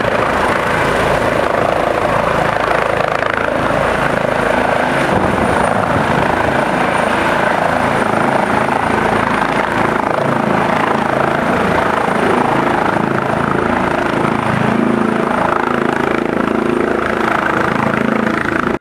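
Eurocopter EC135 air-ambulance helicopter hovering low and setting down to land: steady, loud rotor and turbine noise.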